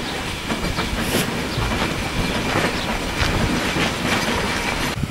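Hunslet Austerity 0-6-0 saddle tank steam locomotive moving slowly, with irregular clanks and knocks from its wheels and motion over the rails, and a brief hiss about a second in.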